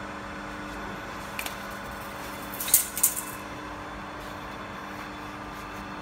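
Steady hum of the DW38CNC hydraulic pipe bending machine running. A few sharp clicks or clinks come about one and a half seconds in and in a short cluster about three seconds in, the loudest of them near the middle.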